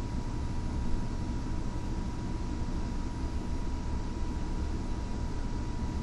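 Steady low background rumble with a faint, steady high tone running through it.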